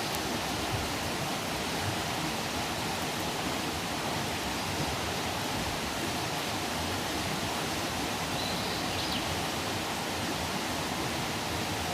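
Outdoor campfire burning with a steady hiss and a few faint crackles. A brief, faint high whistle comes about nine seconds in.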